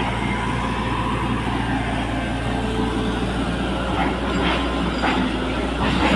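Caterpillar 320D excavator's diesel engine running steadily, with several short knocks or clanks of metal from about four seconds in.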